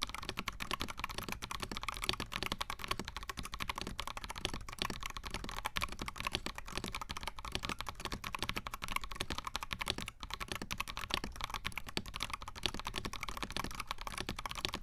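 Mechanical keyboard being typed on fast and continuously, a dense, steady stream of key clacks with a brief pause about ten seconds in.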